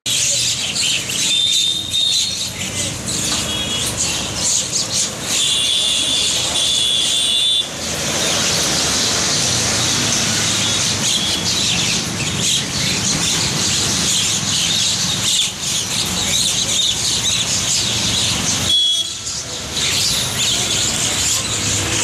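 A flock of common mynas chattering and calling, with a few clear, high held calls about a second in, around six seconds in, and near the end, over steady street traffic noise.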